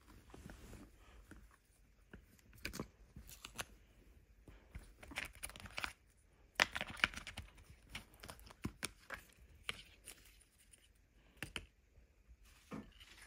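Hands handling a phone box and its contents: cardboard and paper rustling, with scattered light taps and clicks and a louder rustle about seven seconds in.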